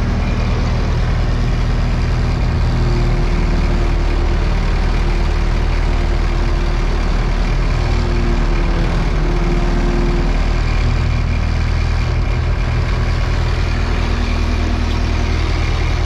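A heavy diesel engine running steadily, heard from inside the machine's cab. A faint whine joins in for several seconds in the middle.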